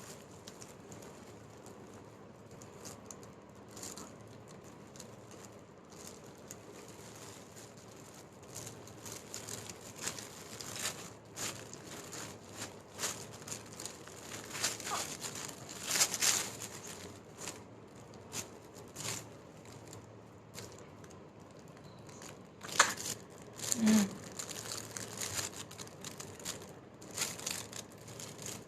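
Irregular crinkling and rustling, sparse at first and busier from about a third of the way in, with a short voice sound near the end.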